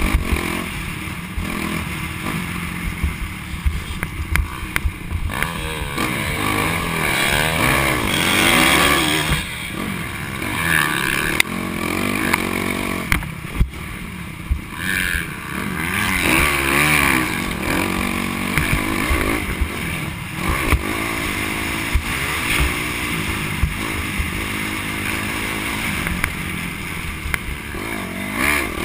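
Dirt bike engine revving up and down as it is ridden, its pitch climbing and dropping every few seconds with the throttle and gear changes. A few short knocks come through along the way.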